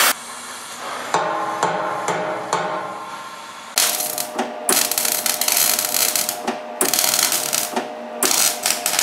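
Stick (arc) welding on steel: the electrode's arc crackles and sputters loudly in spells from about four seconds in, breaking off briefly a few times. Before that there is a quieter stretch with a few light clicks.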